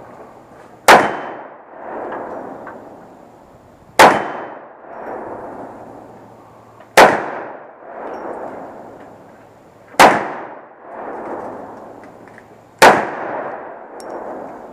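Magnum Research Desert Eagle .50 AE pistol, which has no muzzle brake, firing five single shots about three seconds apart; each is a sharp, loud crack followed by a long echo that swells back about a second later.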